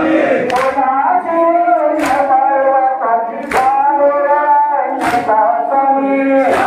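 A man chanting a Muharram lament (noha) into a microphone in a slow, sustained melody. The crowd strikes their chests in unison with sharp slaps about every second and a half, keeping time in matam.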